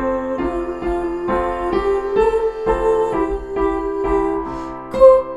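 Piano playing a simple sing-along melody with accompaniment, a steady run of notes with a louder note near the end.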